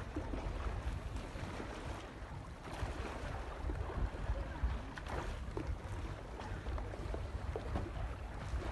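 Small waves lapping and splashing close to the microphone, over a low, uneven wind rumble.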